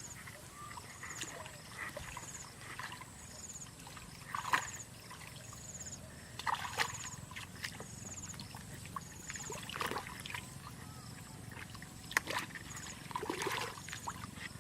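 Water splashing and sloshing in short, irregular bursts, with a faint high chirp repeating about once a second throughout.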